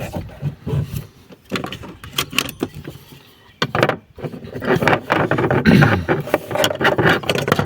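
Hands fitting a used electric fuel pump into a car's fuel tank: a run of clicks, knocks and light metal rattles, sparser at first and busier from about halfway through.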